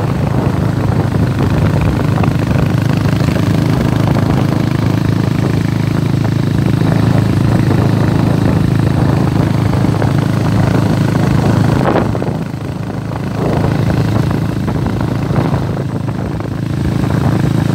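Motorcycle engine running steadily while riding, with the level dipping briefly about twelve seconds in.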